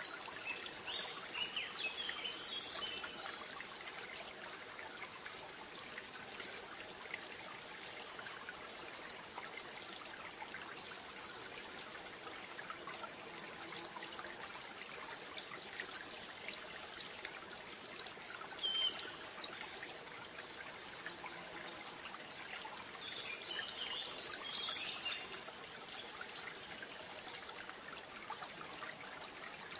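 Steady trickle of running water, like a small stream, with birds chirping now and then.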